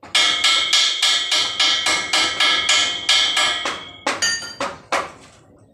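Hammer striking a welded joint on a galvanized steel pipe frame, about four blows a second, the pipe ringing after each blow. Near the end the strikes slow to a few spaced blows with a different ring.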